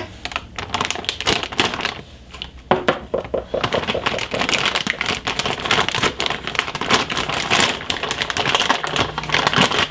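A motherboard's cardboard box and packaging being opened and handled: a rapid run of small clicks, taps and rustles, sparse at first and busy from about three seconds in.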